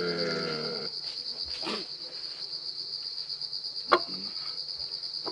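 Crickets chirring in a steady, high, finely pulsing drone. About four seconds in comes a single sharp clink as a plate is set down on a wooden table.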